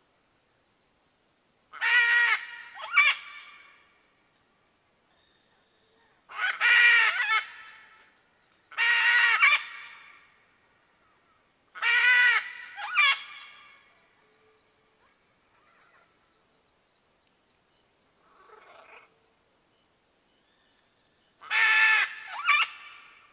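Red macaw (arara-vermelha) giving loud calls about a second long, repeated every few seconds with quiet gaps between them; several are followed by a shorter second note. There is a fainter call a little after the middle.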